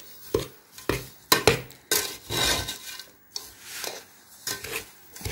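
Metal spoon stirring and scraping a crumbly mawa, chopped dry-fruit and sugar filling in a stainless-steel bowl, clinking against the bowl's side at irregular moments.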